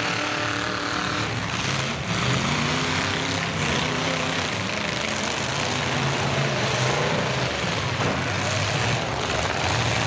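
Several pickup truck engines revving and running hard in a demolition derby heat, their pitch rising and falling over a dense wash of noise.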